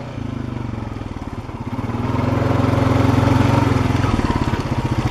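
Honda Fourtrax 420 quad bike's single-cylinder engine running under way at a steady pace. It gets louder as it pulls harder from about a second and a half in, then eases to a lower, plainly pulsing note about four seconds in.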